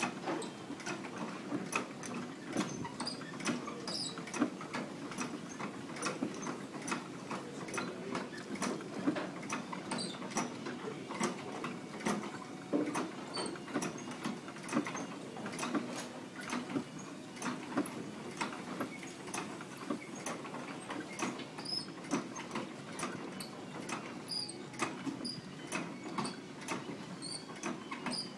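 Potter's kick wheel spinning, its mechanism giving a steady low rumble with many irregular clicks and ticks. A wet sponge wipes the turning wheel head and splash pan, with short faint squeaks.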